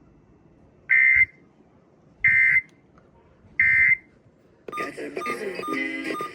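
Emergency Alert System end-of-message data signal: three short bursts of digital data tones about a second apart, marking the end of the warning. About a second and a half after the last burst, a louder, busier mix of tones starts up.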